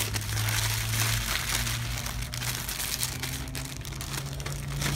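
Paper rustling and crinkling as Lego instruction booklets are handled and packed away, over a steady low hum.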